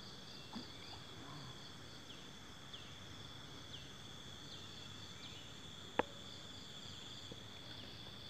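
Insects trilling steadily in riverside vegetation, a continuous high drone with a faster pulsing note above it, joined by a few short falling chirps. A single sharp click about six seconds in.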